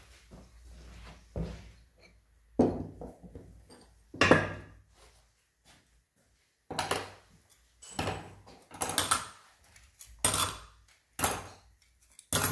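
Irregular knocks and clinks of loose metal engine parts being handled and set down, coming in short separate clusters with quiet gaps between them.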